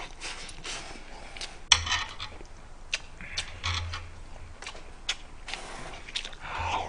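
Eating sounds: chewing and mouth noises, with metal chopsticks clicking and scraping against a pan of beef bulgogi as meat is picked up, including a sharp click a little under two seconds in.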